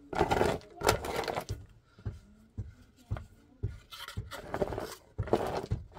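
Edge of a wooden board scraped across dry, stony earth to level a dirt floor, in a series of short strokes with brief pauses between them.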